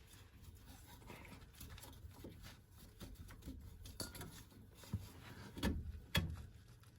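Faint handling noises of a new anti-roll bar link being fitted into the stabilizer bar: a few light clicks and knocks, two sharper ones near the end, over a low hum.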